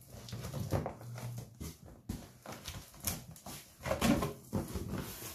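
Cardboard box flaps being pulled open by hand, scraping and knocking against each other, with the keyboard's plastic wrapping crinkling. It is an irregular run of rustles and short knocks.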